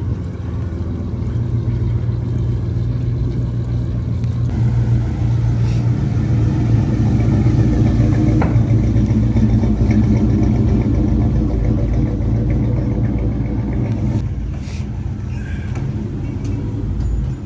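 A car's engine running at low, steady speed, louder from about four seconds in and falling back about fourteen seconds in, as a show car rolls slowly past.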